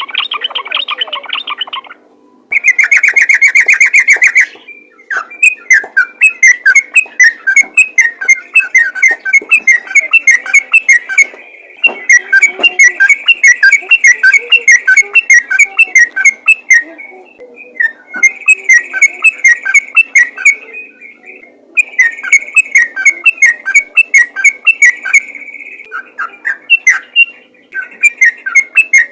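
Yellow-vented bulbul (trucukan) singing in fast, continuous runs of repeated notes, several a second, in bouts of a few seconds broken by short pauses. The song is given as a call that draws other bulbuls. Near the start comes a short, loud, dense burst of chatter.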